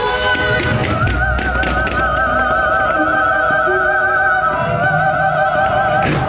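Two women's voices singing long, held operatic notes with heavy vibrato over a musical backing. A few firework cracks come in the first two seconds, and a loud firework bang comes near the end.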